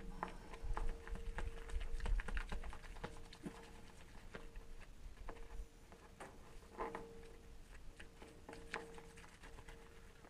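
Irregular light clicks and taps of a hand tool mixing and working Bondo body filler, busier in the first few seconds and sparser later.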